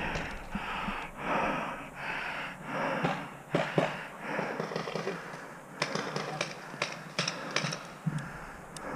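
Heavy breathing close to the microphone, in swells about a second apart, with scattered sharp pops of paintball markers firing; the loudest pop comes a little before the middle.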